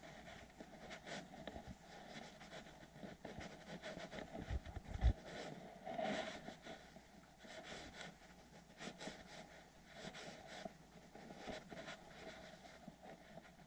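FURminator deshedding tool raking through a fluffy Welsh corgi's long coat in repeated short, scratchy strokes as loose undercoat comes away. A dull thump comes about five seconds in.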